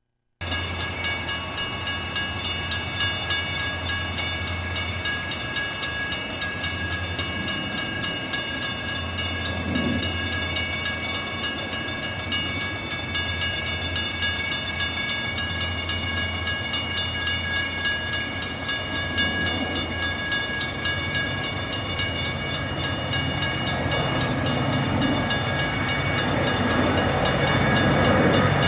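Grade-crossing warning bell ringing steadily with an even, repeating pulse as an Amtrak passenger train led by F40PH diesel locomotives approaches. The train's rumble grows louder over the last few seconds.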